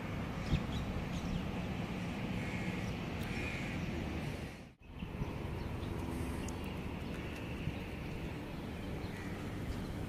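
Birds calling now and then over a steady background hum. The sound drops out for a moment about halfway.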